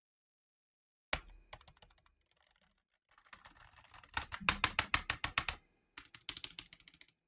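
Computer keyboard being typed on: a sharp knock about a second in, then scattered keystrokes building into fast runs of clicks, with a brief pause before a last burst near the end.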